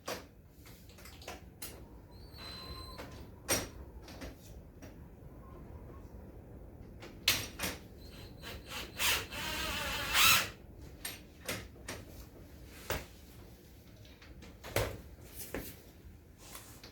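Scattered knocks and clicks of tools and door parts being handled, with a short run of a power drill in the middle.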